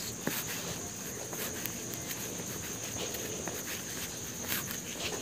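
Footsteps on a concrete station platform, irregular light scuffs and taps, over a steady high-pitched trill that runs throughout.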